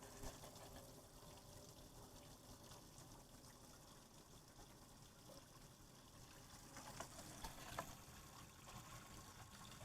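Tap water running steadily into a sink, faint, with a few light knocks about seven to eight seconds in.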